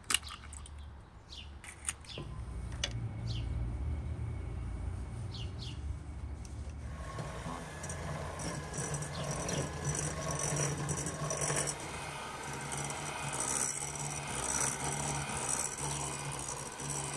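Electric hand mixer beating eggs in a glass bowl: the motor hums from about two seconds in, and from about seven seconds in it gets louder, with the beaters rattling against the bowl. Birds chirp a few times in the first seconds.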